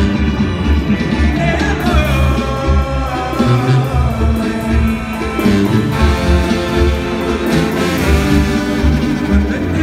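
Live Mexican banda music: brass carries a sustained melody over a steady low bass beat.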